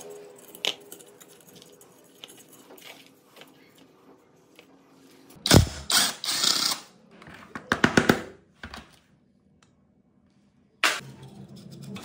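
Electric impact wrench hammering off the water pump's impeller retaining nut, in one long rattling burst about halfway through and a shorter one a couple of seconds later. Before it, a screwdriver scrapes and clicks against the rusty pump housing, and a sharp knock sounds near the end as the loosened parts are handled.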